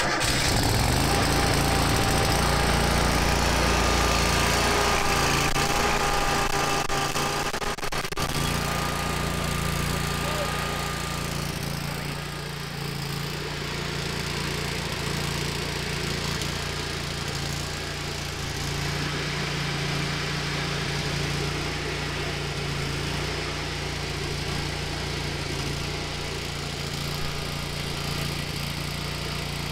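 Lincoln Electric Ranger 250 engine-driven welder's engine starting on choke and running steadily, with a faint whine over the first ten seconds or so. About twelve seconds in the engine note drops a little and settles into a steady run.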